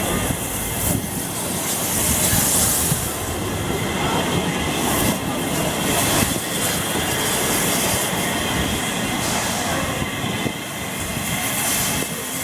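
Steam-hauled heritage train running along the track: steady rumble of wheels on the rails.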